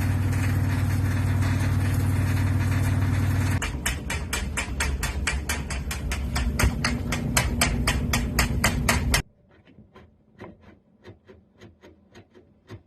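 Samsung WF45B6300AC front-load washer running with a steady hum, then a metal-on-metal clacking at about five knocks a second. About nine seconds in it drops suddenly to faint, slower clacks. The clacking is the drain pump's metal mounting plate bouncing because its screw has come undone.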